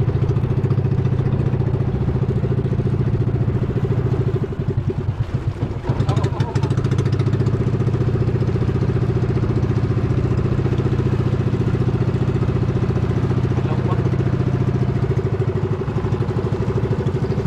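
Outrigger fishing boat's small engine running steadily under way, with a brief dip in level about five seconds in.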